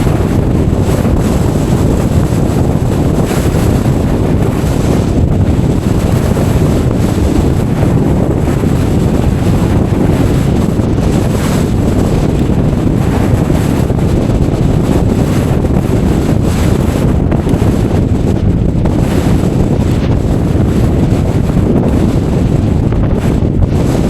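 Strong wind buffeting the microphone in a mountain winter storm: a loud, steady, low rumbling roar of wind noise.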